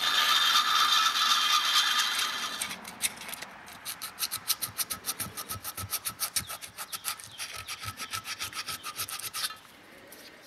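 A rotary tool with a small burr whines steadily as it grinds the aluminium engine case and its filler. About three seconds in, it gives way to fast, rhythmic rubbing strokes over the case, roughly five a second, which stop shortly before the end.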